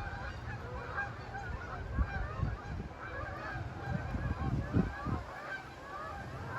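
A flock of geese flying over, honking constantly with many overlapping calls. Brief low rumbles of wind on the microphone break in a few times.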